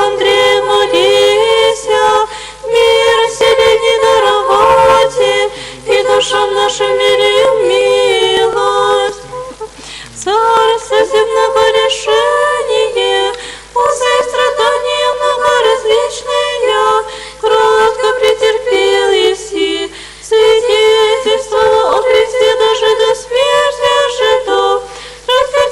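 Orthodox church choir singing a cappella, held chords moving in phrases of a few seconds with short breaks between them. It comes through a radio broadcast, with a steady low hum underneath.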